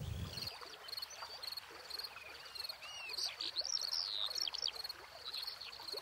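Birds calling outdoors: a high, rapidly pulsing trill throughout, with several sweeping whistled notes in the middle. A brief low rumble at the start.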